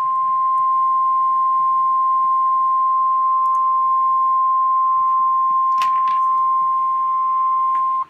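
NOAA Weather Radio warning alarm tone: a single steady 1050 Hz tone held for about eight seconds over faint radio hiss, cutting off abruptly near the end. It is the attention signal that comes before a weather watch or warning message.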